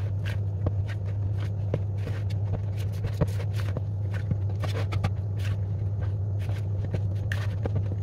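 A fork stirring a loose, shaggy bread dough in a plastic bowl: irregular scrapes and taps of the fork against the bowl, with soft sticky dough sounds. A steady low hum runs underneath.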